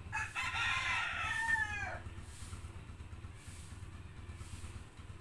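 A rooster crows once, a call of about two seconds that falls in pitch at the end.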